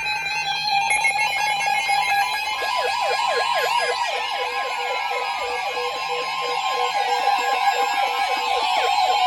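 Several NOAA weather radio receivers sounding their alert alarms together: steady and beeping electronic tones, joined about three seconds in by a fast siren-like warble of about three sweeps a second.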